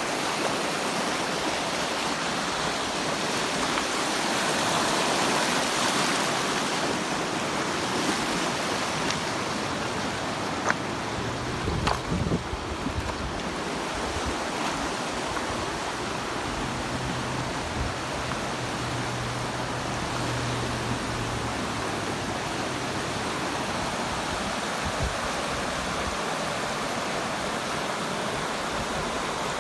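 River water running with a steady rushing, broken by a few brief knocks about eleven and twelve seconds in.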